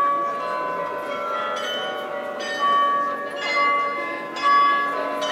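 The Rathaus-Glockenspiel carillon of Munich's New Town Hall playing a slow tune. A new bell note of a different pitch is struck about once a second, and each rings on under the next.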